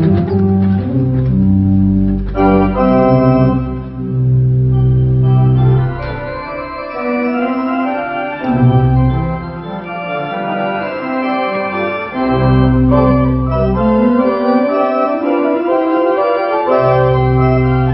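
E.W. Lane tubular-pneumatic pipe organ, built around 1912, being played: sustained chords on the manual, with deep pedal bass notes sounding under them at intervals.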